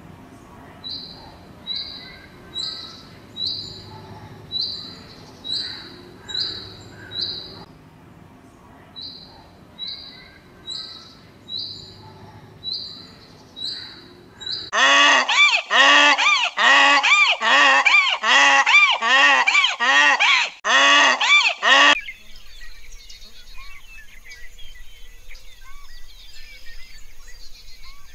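Short high-pitched notes repeating about once a second, then a bird honking loudly and repeatedly for about seven seconds, each honk rising and falling in pitch, then faint chirping near the end.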